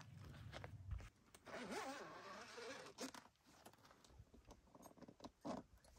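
A zipper pulled open in one long rasp of about a second and a half, faint, followed by a few light clicks and knocks of handling.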